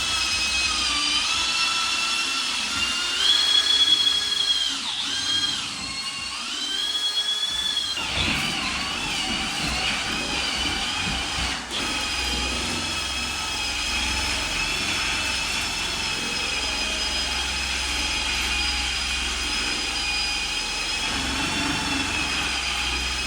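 Electric power tool motor running steadily with a high whine. For the first several seconds its pitch dips and rises as it takes and sheds load, then it settles into a steadier run with a low churning rumble under it.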